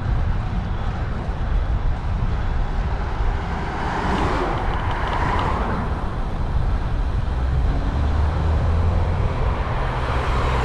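Car traffic heard from a moving bicycle, with steady wind rumble on the microphone. A car passes close by about four seconds in, its tyre and engine noise swelling and fading.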